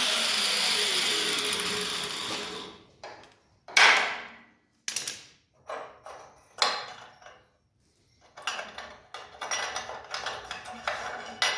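A power tool, likely a cut-off or grinding wheel, winding down after a cut, its pitch falling as it coasts to a stop. Then a series of sharp metal clanks and knocks as parts are handled and struck, the loudest about four seconds in, with a quicker cluster of rattling knocks near the end.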